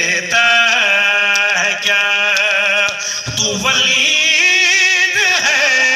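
A man's voice chanting a melodic religious recitation through a microphone and loudspeaker, with long held notes that waver in pitch.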